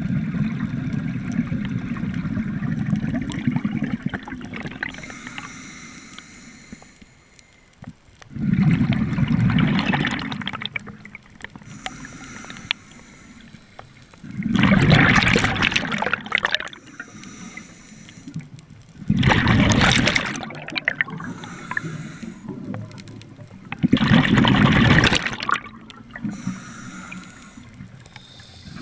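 Scuba breathing through a regulator underwater: exhaled air bubbles out in five loud gurgling bursts, about one every five seconds. Between them comes the quieter hiss of inhaling.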